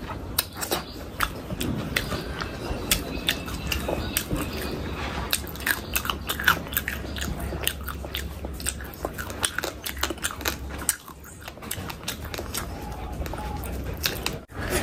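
Close-miked eating: a person chewing and biting food, with a constant run of sharp, irregular mouth clicks and crunches.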